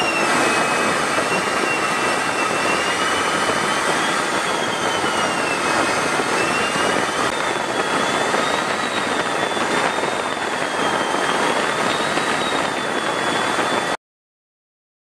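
Jet engine noise in flight: a steady rush with a high whine that wavers slowly up and down in pitch, cutting off suddenly about 14 seconds in.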